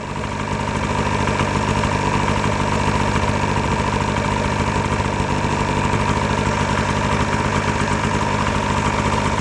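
Snowmobile engine idling steadily with an even hum.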